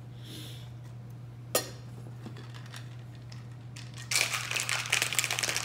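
A single sharp clink about a second and a half in. From about four seconds in comes a fast, dense rattle of ice being shaken in a stainless steel cocktail shaker to chill the drink.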